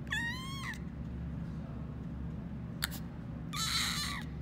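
Baby goat kid bleating twice: a high, clear cry near the start and a raspier, noisier one about three and a half seconds in. A brief click falls between them.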